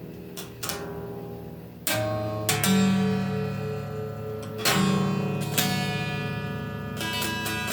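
Guitar music: strummed chords, each left to ring for a second or more. Quicker strumming starts near the end.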